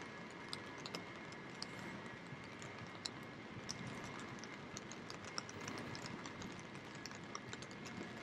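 Rain falling, a steady hiss with many irregular sharp taps of drops striking close by.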